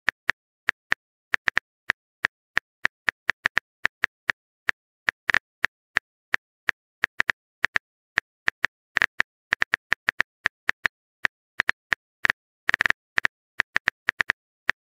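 Phone keyboard tapping sound effect: short, sharp clicks at an irregular pace, a few a second, sometimes bunched into quick runs, with silence between.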